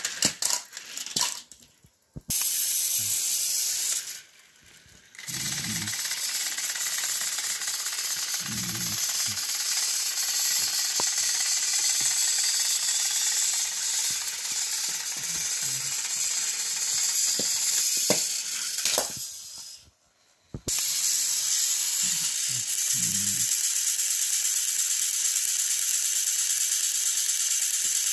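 Battery-powered Thomas & Friends toy train engines whirring steadily, their small motors and plastic gears running as the coupled engines strain against each other on plastic track. The whirr drops out briefly three times.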